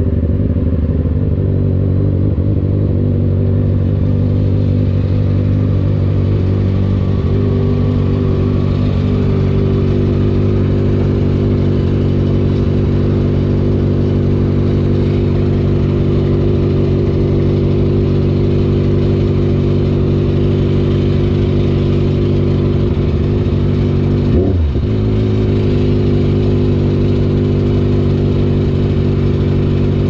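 Benelli SRK 600 inline-four motorcycle engine with an aftermarket exhaust, running steadily at low speed and then idling at a standstill. About 24 seconds in, its pitch briefly drops and rises again.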